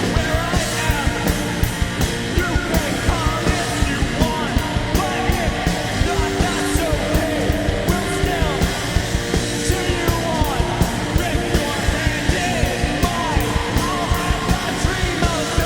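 A rock band playing a loud, fast punk-style song live, with sung and yelled vocals over steady, rapid drumming and amplified instruments.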